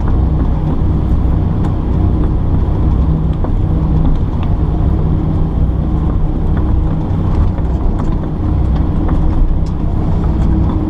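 Kobelco excavator's diesel engine running steadily under load as the machine works, with scattered light clicks and knocks over the drone.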